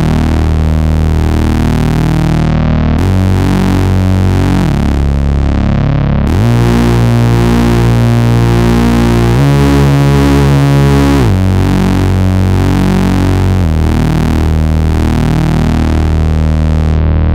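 Nord Lead A1 virtual-analog synthesizer playing its 'Velo Dark Detune' preset: sustained, detuned chords over a deep bass, the chord changing every two seconds or so.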